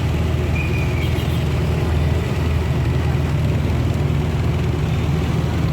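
Steady low rumble of engines, like nearby street traffic, with a short faint higher tone about a second in.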